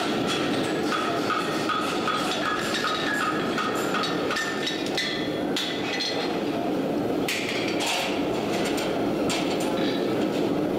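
Propane forge burning with a steady rushing sound, with a handful of sharp metallic hammer strikes on an anvil in the second half and voices in the background.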